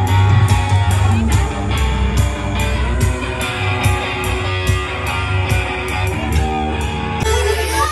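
Upbeat music with guitar, a strong bass line and a steady beat.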